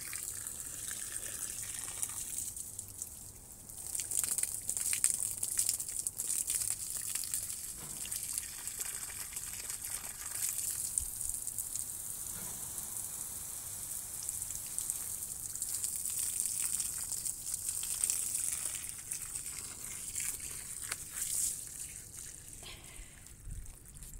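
Water spraying onto garden soil around the base of a small tree: a steady hiss of falling water that fades near the end.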